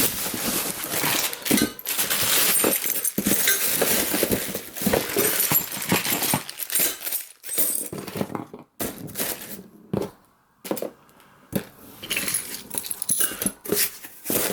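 Hands rummaging through the parts of a bicycle engine kit: rustling plastic packaging and clinking small metal parts, with scattered knocks, busiest in the first half and sparser after about six seconds.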